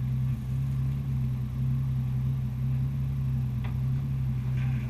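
An engine or motor running steadily with a low, even hum, and a single sharp click about three-quarters of the way through.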